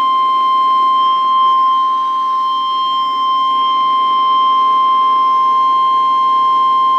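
Weatheradio Canada warning alarm tone: a single steady high-pitched tone held unbroken, the signal that a weather warning bulletin is about to be broadcast.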